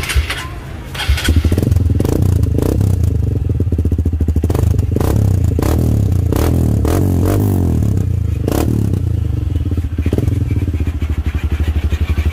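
Honda CRF150 dirt bike's single-cylinder four-stroke engine starting about a second in, then idling with an even, pulsing beat through a fabricated stainless steel muffler. A few short sharp sounds come over it in the middle.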